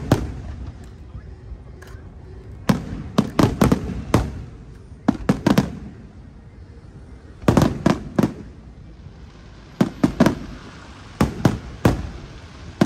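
Aerial firework shells bursting overhead: sharp bangs coming in quick clusters of two to four, with short lulls between the volleys.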